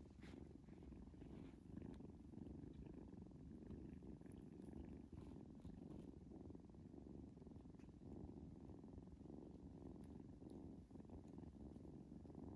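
A kitten purring steadily: a soft, continuous low rumble.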